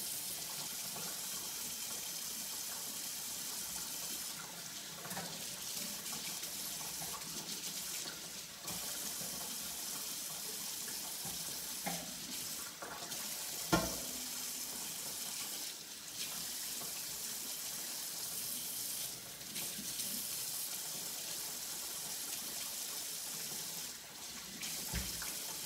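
Kitchen faucet running steadily into a sink, its sound dipping briefly a few times. A few light clicks, and one sharp knock about fourteen seconds in.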